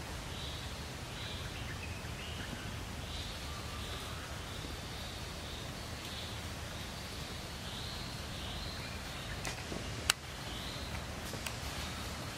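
Forest ambience: a steady low rumble under short high chirps that repeat every second or so, with one sharp click about ten seconds in.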